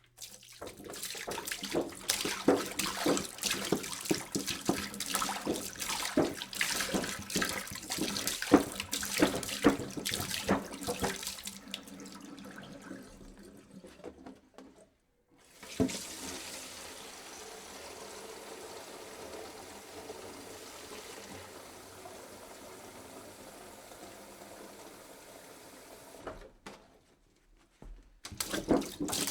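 Water pouring into a jug: a loud, uneven splashing, gurgling pour that tapers off after about twelve seconds, then a brief pause and a knock. A steadier, quieter stream follows for about ten seconds, stops, and a fresh splashing pour starts near the end.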